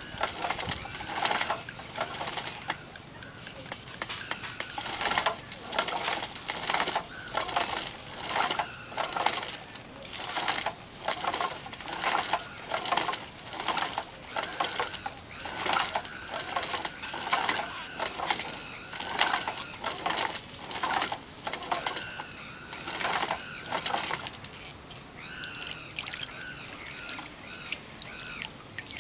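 Hand-powered bamboo pole lathe spinning a lacquerware pot back and forth while it is sanded by hand, giving a rhythmic rubbing and rattling stroke about once a second.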